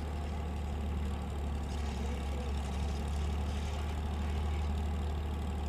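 Motor grader's engine running at a steady, even pitch as the machine grades earth with its blade.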